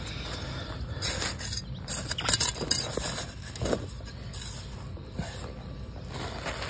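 Soil being scraped and pressed by hand around a seedling set through black plastic mulch film, with the film crinkling. The noise comes in a few short bursts in the first half, the sharpest a little past two seconds in.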